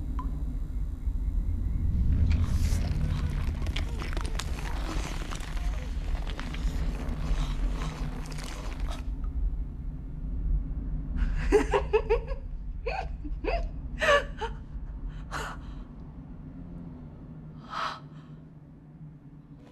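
A woman gasping in surprise, a quick run of short sharp gasps followed by a single shorter voiced gasp near the end, over a low steady rumble. Before the gasps there is a stretch of hissing noise.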